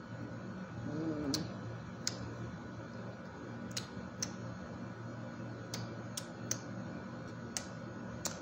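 Wet mouth clicks and lip smacks while tasting ice cream, about nine sharp clicks at irregular intervals, with a brief hummed 'mmm' about a second in.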